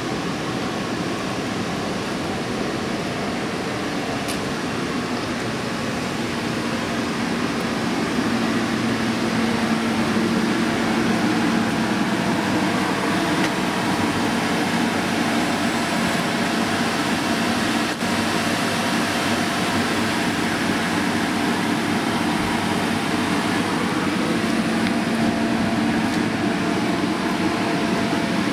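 Electric blower fan of an inflatable bounce house running steadily, a constant fan drone with a low hum, a little louder from about eight seconds in.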